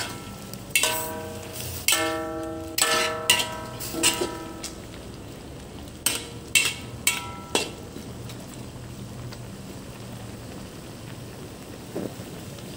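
A utensil clanking against a metal cooking pot while the boiling shrimp are stirred, each knock ringing briefly; about nine knocks in the first half, then only a low steady hum.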